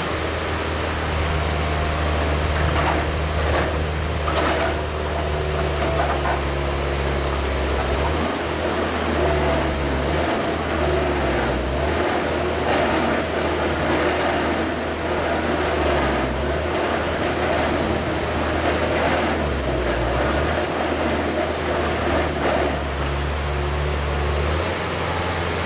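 Truck-mounted pressure digger drilling into rocky ground: its engine runs steadily under load with a low hum that dips briefly now and then, while the auger grinds through rock and spoil, with scattered sharp knocks.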